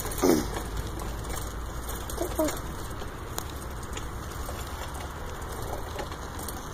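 Steady low rumble of wind and handling noise on a handheld phone's microphone while cycling, with a short falling call just after the start and two brief chirps at about two and a half seconds.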